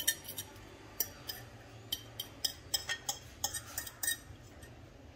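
Metal fork clinking and scraping against a plate while working a beaten egg-and-vegetable mixture, with a few irregular light clinks each second.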